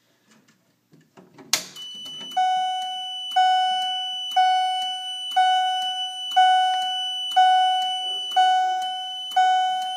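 Fire alarm pull station pulled with a sharp click about a second and a half in. The fire alarm system then sounds in march-time coding at 60 beats per minute: a ringing tone about once a second, each beat fading, over a steady high-pitched tone.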